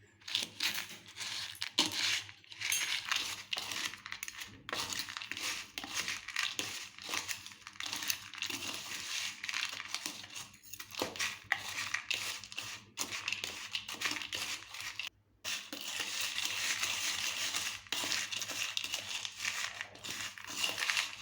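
Unpopped popcorn kernels being stirred in a mixing bowl with butter, salt and pepper: a continuous scratchy rattle full of small clicks, pausing briefly about fifteen seconds in.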